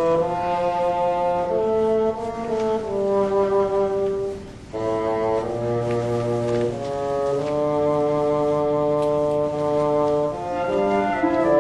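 Music: brass instruments playing slow, sustained chords in several parts, with a brief break between phrases about halfway through.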